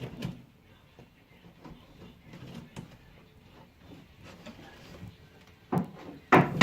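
Light scattered clicks and knocks of hands working on outlet wiring and fittings, with a louder sharp knock near the end.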